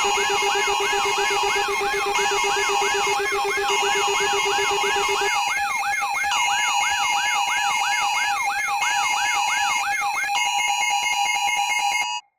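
Layered electronic alarm tones: a rapid siren sweep, rising and falling about twice a second, over several steady held tones. The steady tone underneath drops out about halfway, and everything cuts off suddenly near the end.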